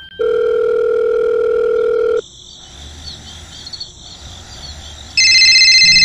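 A steady telephone line tone for about two seconds, the tone a caller hears while the other phone rings, then faint insect chirping. About five seconds in, a loud, rapidly trilling phone ringtone starts.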